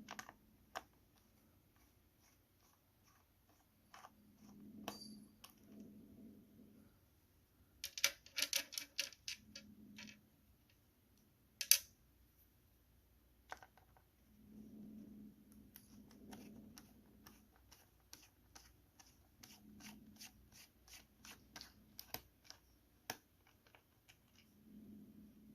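Small screws being turned out of a laptop's plastic bottom panel with a precision Phillips screwdriver: light scattered clicks and ticks, a quick flurry of clicks about eight seconds in, one sharp click near twelve seconds, and a run of fast, even ticks near the end.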